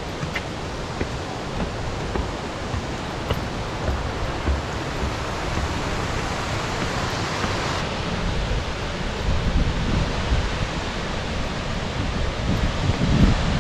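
Steady rush of a waterfall tumbling down the slope beside the trail, with wind buffeting the microphone in uneven low rumbles that grow stronger near the end.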